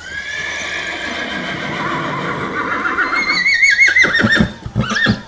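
Horse whinnying: one long high call that falls slowly in pitch, turns into a quavering warble about three seconds in, and breaks into a few short choppy calls near the end.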